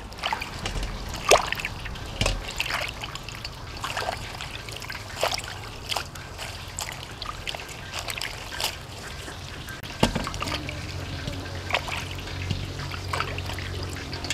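Hands swishing leafy greens and green onions in a stainless steel bowl of water: irregular trickling and splashing with the odd clink against the metal bowl. A faint low hum comes in about two-thirds of the way through.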